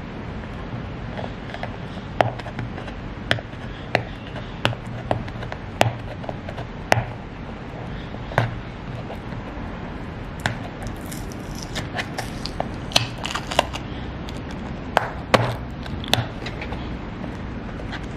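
A small kraft cardboard box being handled and opened by hand: a string of sharp taps and clicks from fingers and cardboard, with a stretch of crackling about two-thirds of the way in as the taped flap is worked loose. A steady low hum runs underneath.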